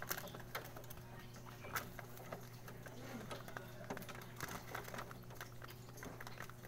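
Pigeons pecking feed pellets from a plastic trough feeder: a rapid, irregular clatter of beak taps and clicks on the pellets and feeder, with a steady low hum underneath.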